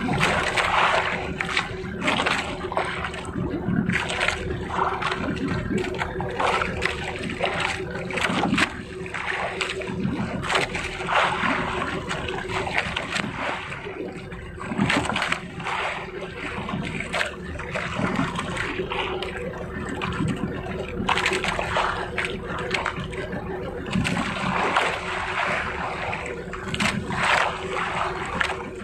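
Sea water splashing and rushing against the hull of a moving outrigger fishing boat in irregular surges, over the steady drone of its engine.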